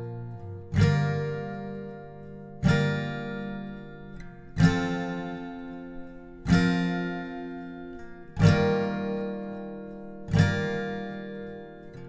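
Background music: an acoustic guitar striking a single chord about every two seconds, six times, each chord ringing out and fading before the next.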